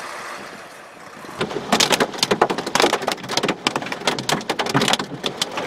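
Heavy rain pattering on pavement: a dense, irregular crackle of drops hitting the surface, starting about a second and a half in after a steadier hiss fades.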